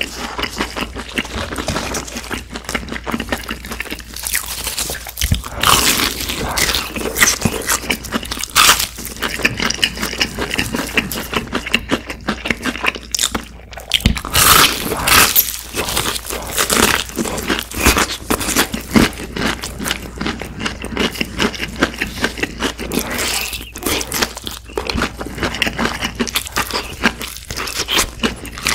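Close-miked crunching and chewing of crispy fried chicken, with loud crunchy bites in bursts and wet chewing between them.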